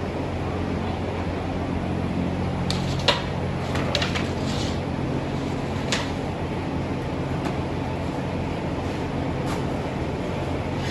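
Steady machine hum of kitchen equipment, with a few sharp clinks and knocks about three, four and six seconds in.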